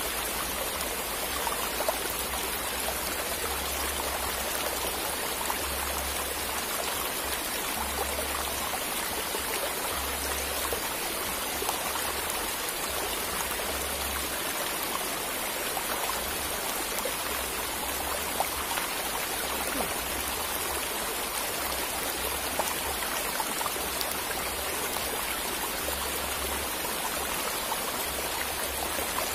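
Steady rush of flowing river water, even and unbroken, with occasional low rumbles underneath.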